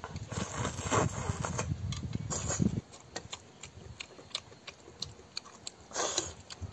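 Slurping and chewing of rice noodles eaten with chopsticks, a few noisy slurps with small clicks in between. A low rumble runs under the first three seconds and stops abruptly.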